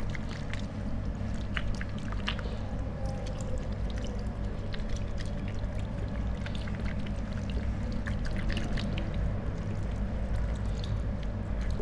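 Tap water running steadily into a ceramic washbasin while hands rub under the stream to rinse off soap, with small splashes and drips throughout.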